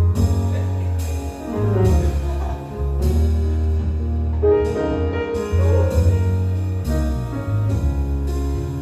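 Jazz band playing: grand piano, electric bass guitar and drum kit together, with firm, steadily changing bass notes under piano chords and a running beat of cymbal and drum strikes.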